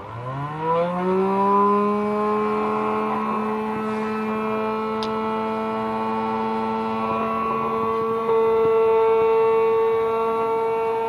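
Motor of a homemade table saw switched on: its whine rises quickly in pitch for about a second and a half as it spins up, then runs steadily at full speed, getting a little louder about eight seconds in.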